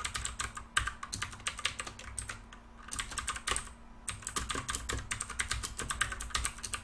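Computer keyboard typing: quick runs of keystrokes with a short pause about two and a half seconds in.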